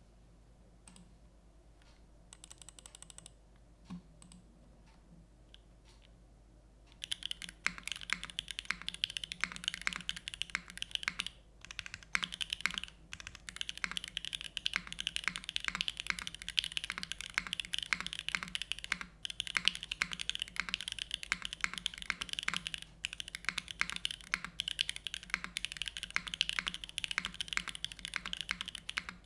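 Fast, continuous typing on a gasket-mounted 65% mechanical keyboard with lubed Gateron Milky Yellow linear switches, GMK keycaps and an aluminium plate. The typing starts after several quiet seconds, with a few brief pauses.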